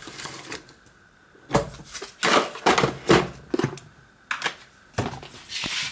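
A pinning tray full of lock pins being handled and set down: a run of sharp clicks, knocks and short rattles.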